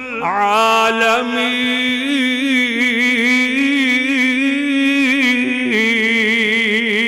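A man's voice chanting Quranic recitation in a drawn-out melodic style. He sustains one long note with a wavering pitch, then steps up to a higher note near the end, stretching out the phrase 'inni ana Allahu rabb(il-alamin)'.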